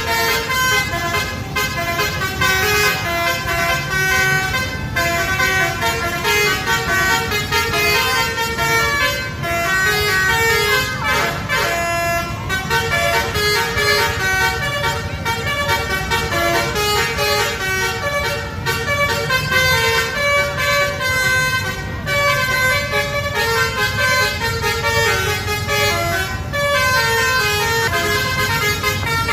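Bus basuri (telolet) multi-tone air horn playing a melody in stepped notes, one tune after another, over the low rumble of the bus engine.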